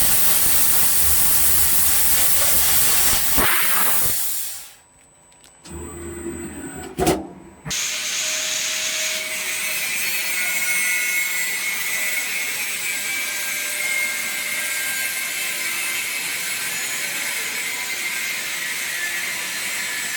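Fiber laser cutter cutting thin copper sheet: a steady hiss of assist gas from the cutting head. The hiss breaks off about four seconds in, with a short sharp knock near seven seconds, and runs steady again from about eight seconds.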